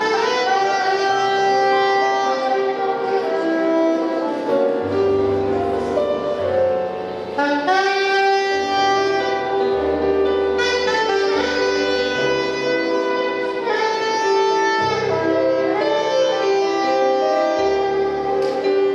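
Jazzy instrumental music with a horn, sounding like a saxophone, carrying the melody over a bass line.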